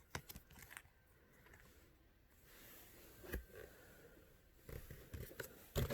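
Faint handling noises of a subscription box's contents and packaging: soft rustling with scattered light clicks and a few small knocks, the loudest about three seconds in and near the end.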